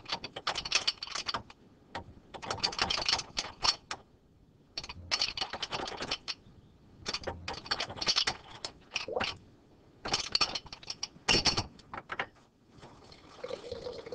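Mechanical clicking and scraping in runs of about one to two seconds with short pauses between, about seven runs in all, from a hand tool working.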